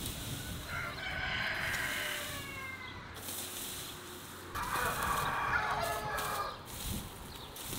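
A rooster crowing twice, each crow about two seconds long with a falling pitch at the end. Beneath it, a rake scrapes through cut dry grass.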